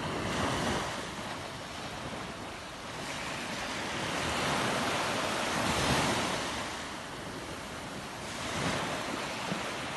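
Small sea waves breaking and washing up a sandy beach. The surf swells and fades every few seconds, with wind buffeting the microphone.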